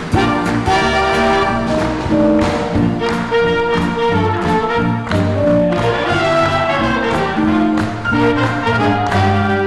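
Live swing band playing jazz, with trumpets and trombones carrying sustained horn lines over drums and double bass with a steady beat.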